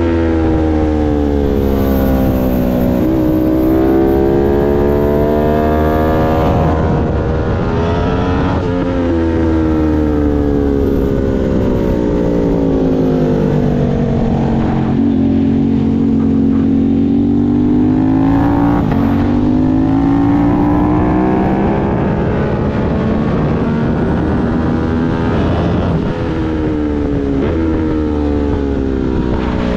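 Aprilia Tuono 660 Factory's parallel-twin engine at high revs under hard acceleration, its pitch climbing and dropping sharply at upshifts about 3 and 9 seconds in. Through the middle the revs fall away slowly through a long corner, then climb again, with another shift near the end.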